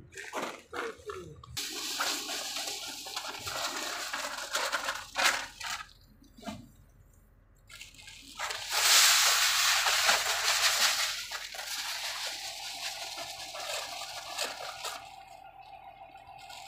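Alfalfa seed pouring into a Horsch planter's seed hopper, a rushing hiss in two stretches with a short pause between; the loudest pour is about nine to eleven seconds in. A faint steady hum can be heard near the end.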